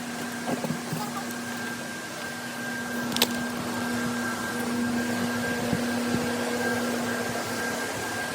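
A steady mechanical hum, like a small motor or fan running, with one sharp click about three seconds in.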